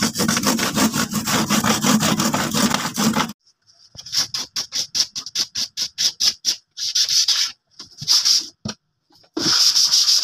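A hand saw cutting a wooden board in quick back-and-forth strokes, stopping abruptly about three seconds in. Then wood being sanded by hand with sandpaper: a run of short rapid strokes, about five a second, followed by three longer, slower strokes.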